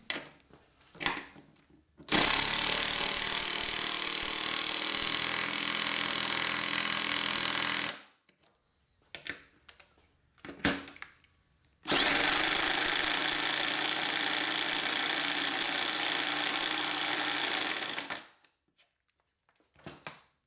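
A cordless impact driver hammering a lag screw into wood for about six seconds. After a few clicks and knocks, a drill fitted with a chuck-mounted impact adapter hammers another lag screw in for about six more seconds. Both runs stop abruptly.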